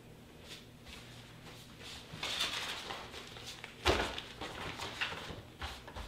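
Sheets of paper rustling and shuffling as stacks are handled on a desk, with one sharp thump about four seconds in.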